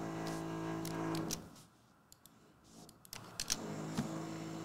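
Power drill motor whining at a steady pitch. It stops about a second and a half in and starts again about three seconds in, with a few sharp clicks in the pause.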